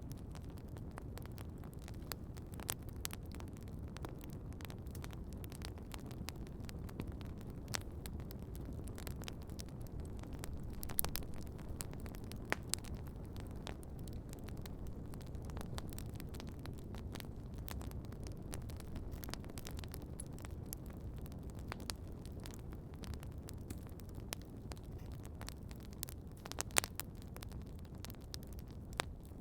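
Wood campfire crackling: scattered sharp pops and snaps over a steady low rumble, with a louder cluster of pops about eleven seconds in and again near the end.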